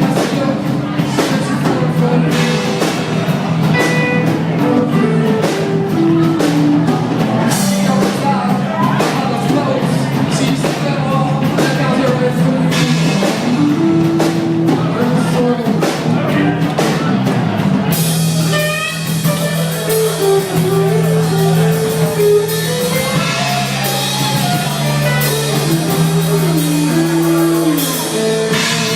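A rock band playing: drum kit and guitar, with a stepping melody over held bass notes. About eighteen seconds in, the sound turns fuller and brighter.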